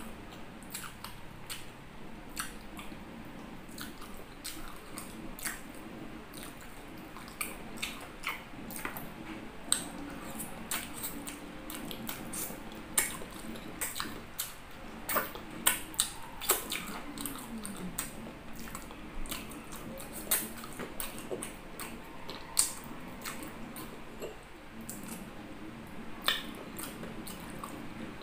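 Close-up mouth sounds of a man eating chicken feet with his fingers: wet lip smacks, sucking and chewing clicks, coming irregularly and most densely in the middle stretch. A low steady hum runs underneath.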